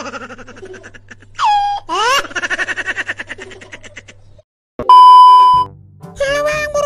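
Grey tabby cat yowling in long, wavering cries that rise in pitch at the start and pulse quickly, like laughter, over a low steady hum. About five seconds in comes a loud, steady electronic beep lasting under a second, and music starts near the end.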